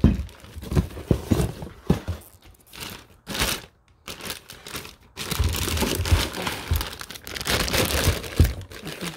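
Plastic wrapping crinkling and rustling as it is handled, with a few light knocks. The rustling becomes louder and denser about five seconds in.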